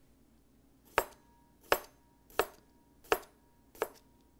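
Kitchen knife slicing a Japanese cucumber into thin rounds on a plastic cutting board: five sharp chops at an even pace, about one every 0.7 seconds.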